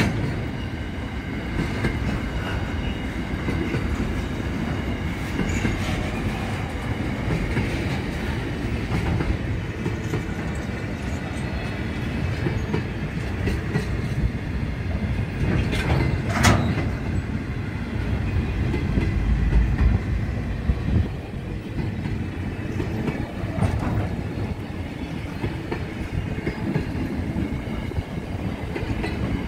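Container freight wagons rolling past: a continuous rumble of steel wheels on rail with a faint thin wheel squeal through the first half, and one sharp bang about sixteen seconds in.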